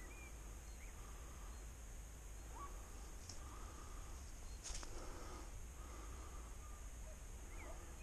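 Faint, distant hunting dog baying on wild boar: short, even-pitched calls repeated about every second. There is a brief rustle or click a little past the middle.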